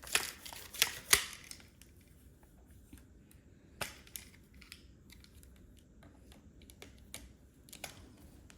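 Plastic parts of a drink pusher organizer clicking and knocking as the pusher is fitted onto its glide rail: a burst of sharp clicks in the first second or so, then a few scattered single clicks.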